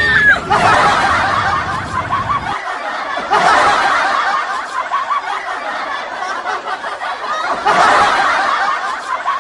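A telolet bus horn toot ends just as the sound begins, followed by several people laughing and snickering at length. The laughter swells twice along the way.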